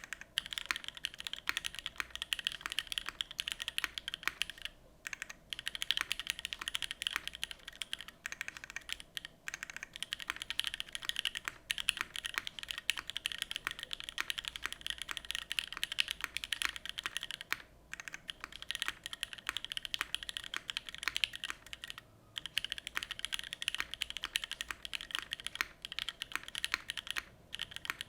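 Steady, fast typing on a mechanical keyboard with linear Gateron Everfree Curry switches lubed with Tribosys 3204 and GMK Dracula keycaps on an aluminium plate: a continuous stream of keystroke clacks, broken by a few brief pauses.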